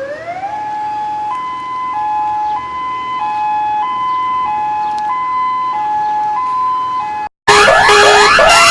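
Electronic two-tone siren: a tone glides upward, then alternates between a lower and a higher pitch about every 0.6 seconds in a steady hi-lo pattern. It stops abruptly about seven seconds in. After a brief gap, a much louder alarm of rapid, repeated rising sweeps begins.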